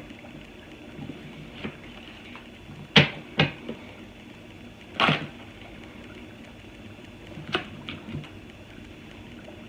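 Tarot cards being handled and shuffled on a table: a handful of sharp card snaps and slaps, the loudest about three and five seconds in, with softer rustling between.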